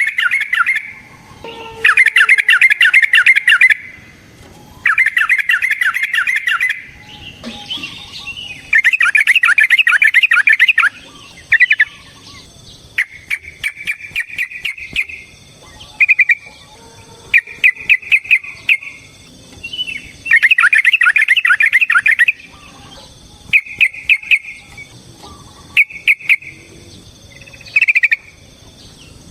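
Yellow-vented bulbul (trucukan) calling in repeated bursts of rapid, bubbly chattering phrases about one to two seconds long. Shorter notes and sharp ticks fall between the bursts. This is the long, rapid 'ropel' song used as a lure to stir other trucukan to sing.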